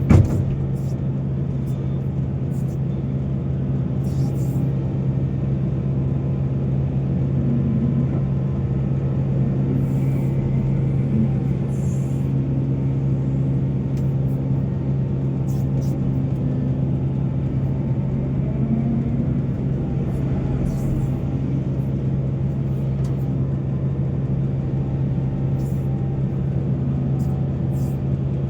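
A heavy diesel engine of mining machinery runs steadily at an even pitch with a deep drone. There is a short knock right at the start.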